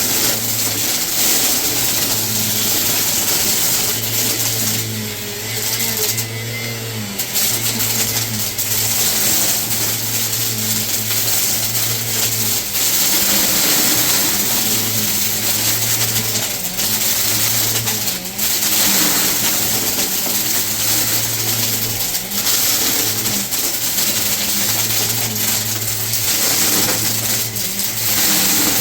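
Vacuum cleaner running continuously, its motor pitch wavering up and down a little as it is worked over the floor.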